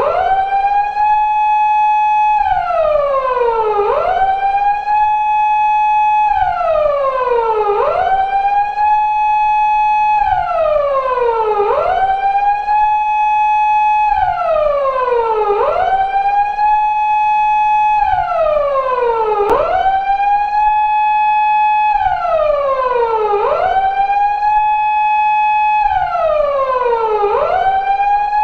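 Japanese police car siren of the 2000s type used on 170- and 180-series Toyota Crown patrol cars, wailing in a slow cycle of about four seconds. Each cycle is a quick rise, a held high tone of about a second and a half, then a slow falling slide before the next rise.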